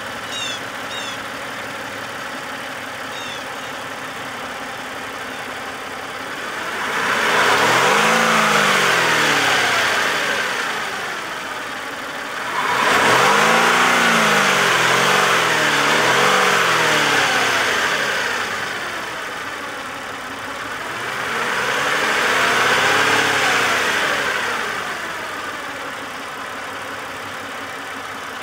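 2008 Lincoln MKZ's 3.5-litre V6 idling, then revved three times. The first is a slow rise and fall about a quarter of the way in. The second comes suddenly in the middle and is held with a couple of quick blips. The third is a smoother rise and fall near the end, before it settles back to idle.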